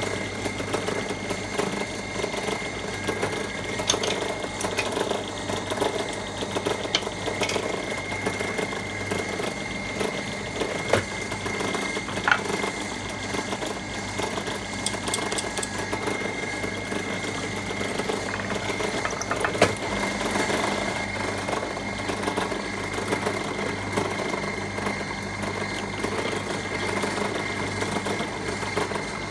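Benchtop drill press running steadily with a constant hum and a high whine, while its bit drills pilot holes into Tasmanian oak hardwood. A few short sharp clicks stand out over the running sound.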